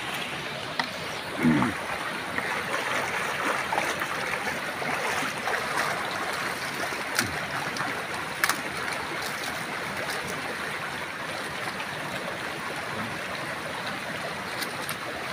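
Shallow stream running over stones: a steady rush of water, with a few short splashes and knocks as leaves are rinsed in it.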